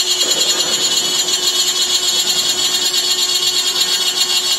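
Aluminum-profile CNC drilling and milling machine's spindle running with its cutter working an aluminum profile: a loud, steady high-pitched whine with a fast fluttering rattle.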